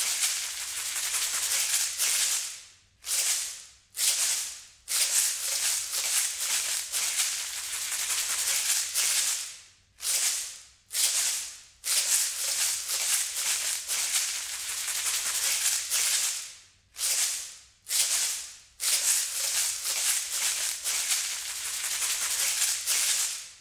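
Continuous hissing rattle of a shaker being shaken, which stops and dies away about six times before starting again, then cuts off suddenly at the end.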